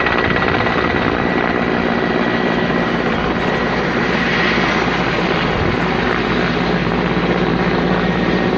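Helicopter running steadily: rotor and turbine noise with a steady high whine.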